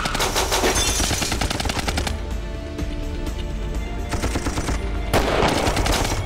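Rapid gunfire in bursts: a long run of fast shots over the first two seconds, then shorter bursts about four and five seconds in.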